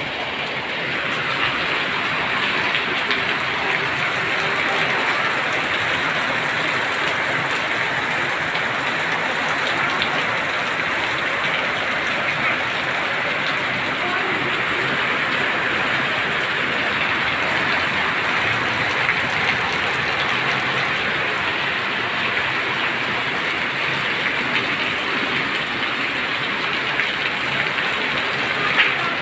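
Heavy tropical rain pouring down steadily: a dense, even hiss of downpour.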